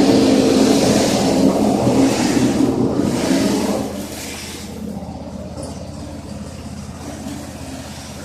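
Gasoline engine of a homemade concrete mixer running, with rushing surges over the engine note for about four seconds. About four seconds in it drops to a quieter, steady run.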